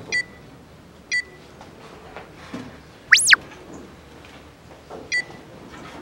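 Editing sound effects: short electronic countdown-timer beeps, one near the start, one about a second in and another near the end, and in the middle a quick whistle-like glide that sweeps up to a high pitch and straight back down, the loudest sound.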